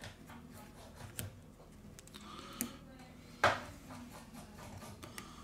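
Small handling clicks and taps as a phone battery is lowered into the Xiaomi Mi8 Lite's frame and pressed into place. The loudest, sharpest click comes about three and a half seconds in.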